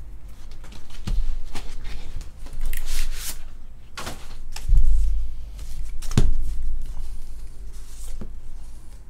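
Cardboard and paper being handled as a box's contents are slid out: scraping and rustling with several dull knocks, the loudest about five seconds in.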